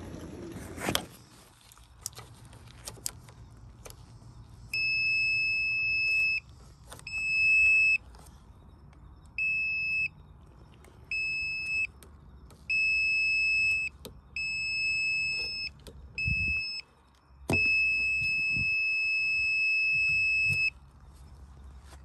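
Non-contact voltage tester pen beeping a steady high tone in uneven stretches, from under a second to about three seconds long, as it is held to and moved off the dishwasher's wiring. The beep is the sign that the wire is live. A couple of dull knocks come about two-thirds through.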